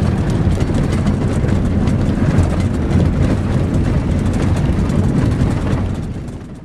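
Heard from inside the cabin of a vehicle driving on an unpaved dirt road: steady engine and tyre rumble with many small rattles and knocks. The sound fades out near the end.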